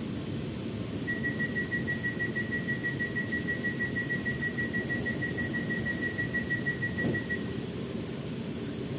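Metro train door-closing warning: a rapid, evenly pulsing high beep for about six seconds over the steady low rumble of the train, with a dull thud just before the beeping stops.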